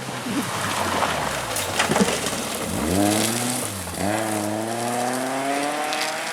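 Rally car engine accelerating hard: the revs climb, drop sharply at a gear change about four seconds in, then climb again. Before the engine comes up, a rush of tyre noise with a few sharp clicks.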